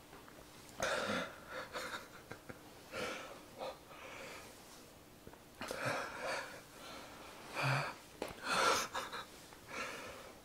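A man breathing hard through his mouth in a string of irregular wheezing gasps, each a short hissy breath with silence between: his reaction to the burn of extremely spicy fire noodles.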